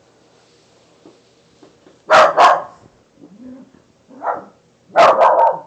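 Puppy barking in short bursts: a quick double bark about two seconds in, a smaller bark past four seconds, and another bark just after five seconds.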